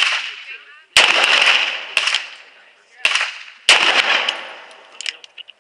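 Smith & Wesson Model 629 .44 Magnum revolver firing: three loud shots, about a second in, three seconds in and just under four seconds in, each fading out over about a second, with a fainter bang about two seconds in. A few light metallic clicks come near the end.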